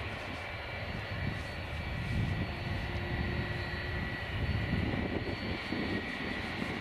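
Boeing 757-200's Rolls-Royce RB211-535 jet engines running near idle as the airliner taxis onto the runway: a steady high whine over a low rumble.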